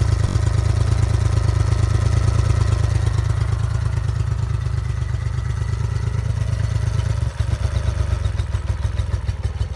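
A 2006 Honda 40 hp four-stroke outboard motor idling steadily with an even pulse. The owner judges it a good-running power head with no issues.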